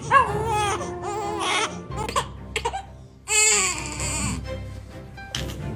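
A baby crying in short repeated wails, then a longer wail about three seconds in that falls in pitch, over background music.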